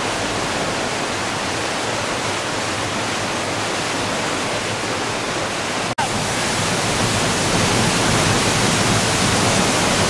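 River in flood rushing and churning as white water, with floodwater pouring over a weir: a loud, steady rushing that cuts out for an instant about six seconds in and comes back slightly louder.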